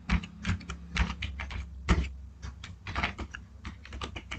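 Typing on a computer keyboard: a quick, uneven run of key clicks, about four or five a second.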